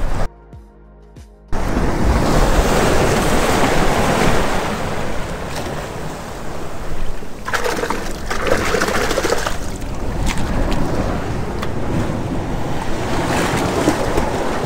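Ocean surf and wind rushing over an action camera's microphone, with clothing rubbing against it as the wearer clambers over the shoreline rocks. The noise drops away for about a second near the start.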